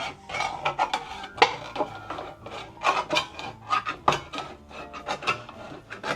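Irregular metal clicks and scraping as a hand can opener is worked at the lid of a tin can that will not open.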